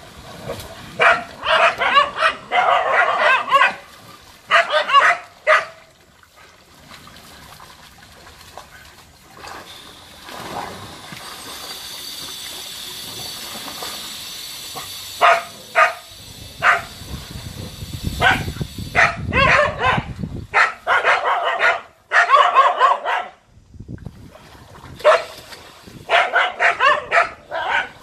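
A pack of dogs barking in rapid, overlapping volleys as they attack a monitor lizard in a pond. Three bouts of barking, with a quieter lull of several seconds after the first.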